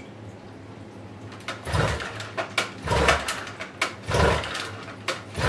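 Irregular metallic knocks and scrapes from handling the splined driveshaft in a Yamaha 30D outboard's gearcase, roughly two a second, starting about one and a half seconds in over a low steady hum.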